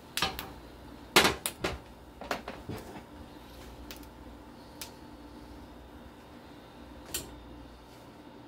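Spatula knocking and scraping against a frying pan and a ceramic plate as fried eggs are lifted out and laid on the plate: a cluster of sharp clinks in the first three seconds, then a few scattered light taps.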